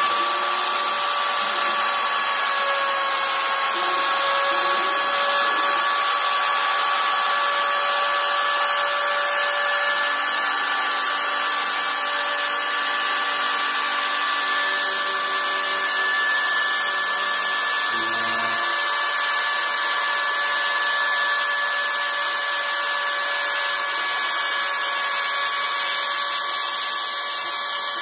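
CNC router spindle running at a steady high-pitched whine while milling, over a constant cutting noise. A brief low knock comes about two-thirds of the way through.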